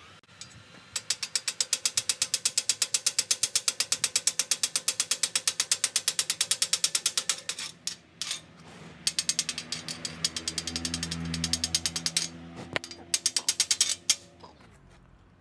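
Rapid metal-on-metal taps chipping slag off a stick-weld bead, about eight or nine a second, in a long run, a second shorter run and a brief last burst.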